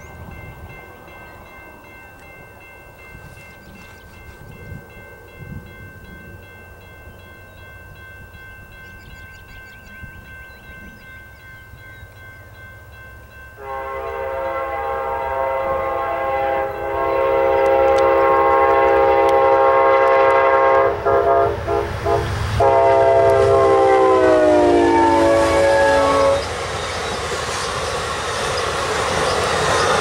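Amtrak GE P40DC locomotive's air horn blowing an extended run of long blasts, with a few short breaks, about halfway through. Its chord slides down in pitch as the locomotive goes by. The horn is followed by the steady rumble and wheel clatter of the passing Superliner cars.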